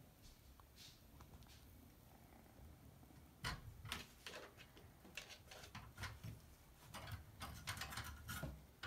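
Kittens' paws and claws scrabbling and tapping on the sides of a bathtub: a run of light scratches and taps that starts about three and a half seconds in and comes in quick clusters.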